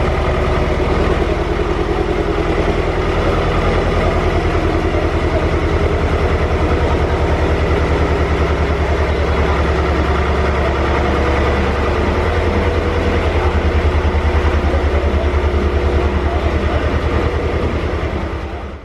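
Small tractor's engine running steadily at low revs, an even low pulse.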